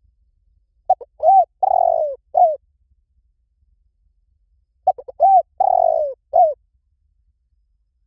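Spotted dove cooing: two matching phrases about four seconds apart. Each phrase is a few quick short notes, then arched coos, a longer coo that falls at its end, and one last short coo.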